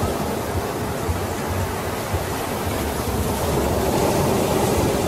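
Ocean surf: a steady wash of waves breaking, swelling a little in the second half.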